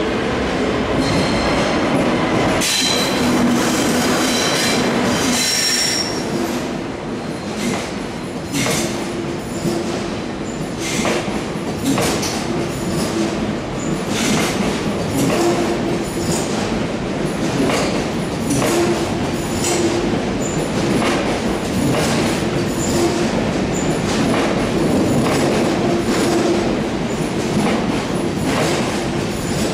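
ICE 1 high-speed train rolling into a station past the platform: high-pitched wheel squeal in the first six seconds or so, then a steady run of clicks as the wheels cross rail joints and points, over a continuous rolling rumble.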